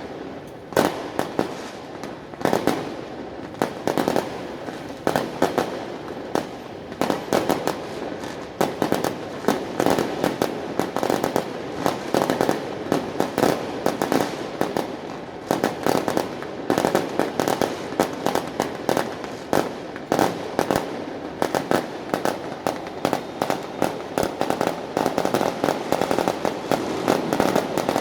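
Fireworks and firecrackers going off all around, dense sharp bangs several a second over a constant crackling din, with no let-up.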